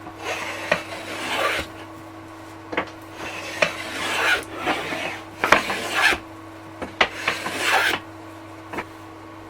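Jointer hand plane cutting shavings along the corner of a sapele staff blank in about five strokes of a second or so each, with light knocks between strokes. The corner is being planed off to turn the square blank octagonal.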